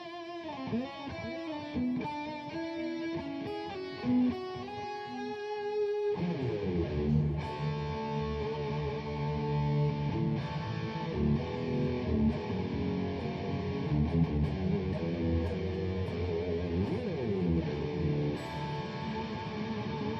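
Ibanez J.Custom RG8520GE electric guitar played through an amp: single-note melodic lines at first, then about six seconds in it switches to thicker, heavier low-register playing that continues.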